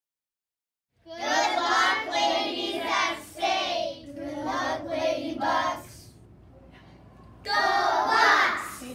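A group of young children singing together, starting about a second in, with a pause of about a second and a half near the middle before they sing again.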